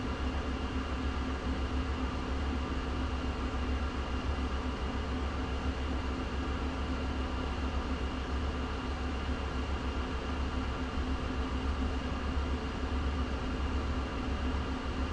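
Steady cabin hum inside a stationary Jaguar I-PACE electric car: an even, fan-like hiss over a low rumble, with a faint steady tone and no engine note.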